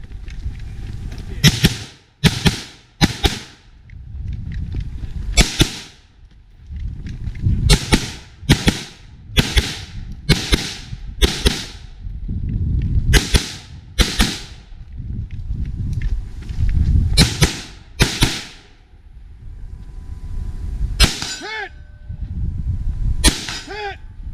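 HK MR556A1 semi-automatic 5.56 rifle firing about seventeen shots, singly and in quick strings of two to four, with pauses between strings. A low rumbling noise fills the gaps, and two of the last shots are followed by a short ringing tone.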